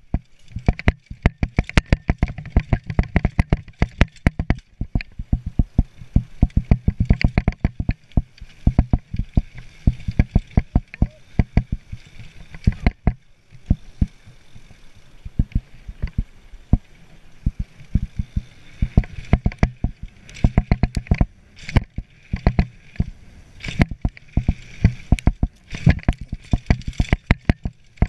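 Downhill mountain bike rattling and clattering over a rough trail: rapid, irregular knocks from the frame, chain and suspension over bumps and roots, over a steady rush of tyre and wind noise. The knocks thin out briefly about halfway through.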